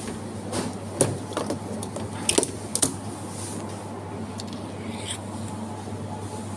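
Supermarket ambience: a steady low hum, with a few sharp clicks and knocks between about one and three seconds in.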